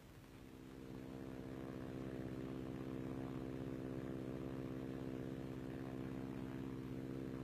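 de Havilland Chipmunk's four-cylinder Gipsy Major piston engine running steadily in flight, fading in over about the first second.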